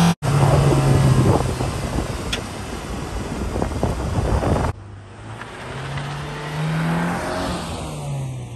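Car engine running under heavy wind buffeting, then after a sudden cut about halfway through, a quieter engine rising and falling in pitch as it revs.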